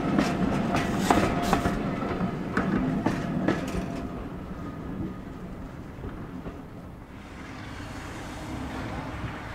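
Diesel-hauled passenger train passing, its wheels clicking over the rail joints in a quick rhythm at first. The clicking then dies away and the train's rumble fades as it draws off.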